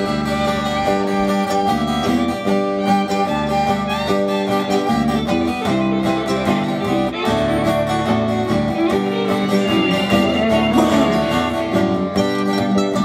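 Instrumental break in a sung folk-style song: guitar and fiddle playing a steady tune.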